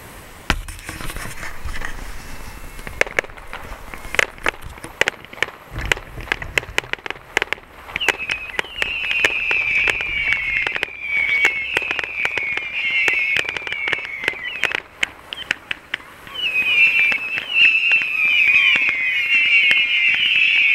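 Fireworks going off: two deep launch thumps, then rapid sharp cracks and pops, joined from the middle on by a crowd of high, overlapping falling whistles that grow loudest near the end.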